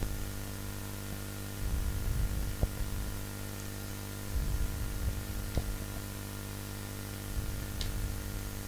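Steady electrical mains hum with a faint hiss on the recording, with soft low rumbles twice and a few faint clicks.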